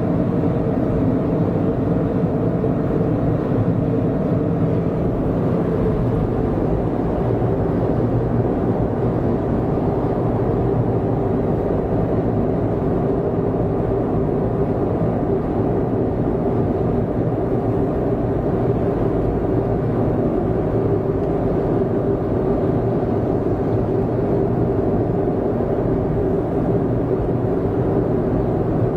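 Steady road and engine noise inside a car cruising at expressway speed, unchanging throughout.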